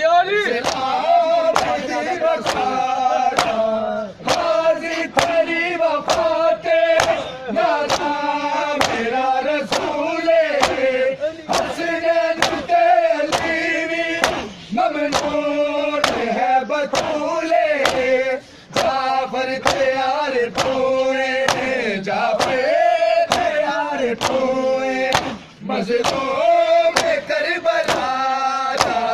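Men's voices chanting a noha (Shia lament) together, over a steady beat of open hands slapping bare chests in matam, somewhat more than once a second.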